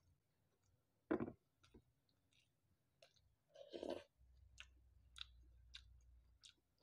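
A person chewing food close to the microphone, with mouth clicks that come about every half-second in the second half. A single sharp knock about a second in is the loudest sound.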